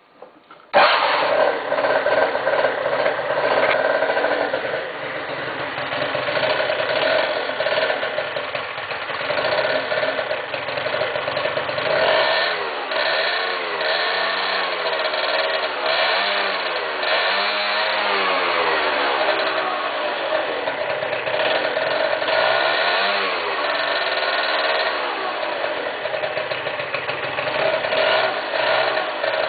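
Derestricted Keeway motorbike engine starting abruptly about a second in, then running with the revs rising and falling repeatedly in the middle stretch.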